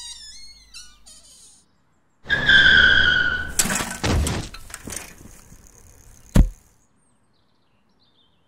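A slapstick crash of sound effects. First a quick run of falling tinkling notes. Then a loud high screech for about a second, cut off by a crash of breaking and shattering. One heavy thud follows a couple of seconds later, typical of something landing.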